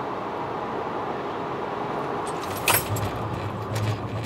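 Tyre and wind noise of a Mercedes-Benz E220 W212 at speed, heard at the front wheel. About two and a half seconds in comes a sharp crack, then a steady low hum and rough, uneven noise as the car brakes hard for a stopping-distance test.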